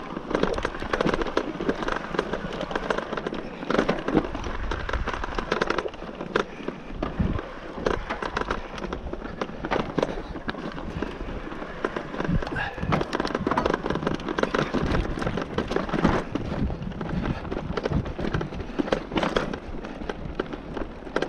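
Mountain bike rolling over a rocky dirt trail: tyres crunching on gravel and loose rock, with a constant crackling clatter of the bike shaking over the bumps.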